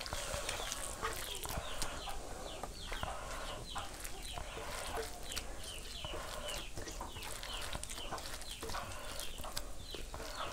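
Chickens clucking, with many short, high, falling chirps repeating throughout, over soft clicks of hands mixing rice on a wooden plate.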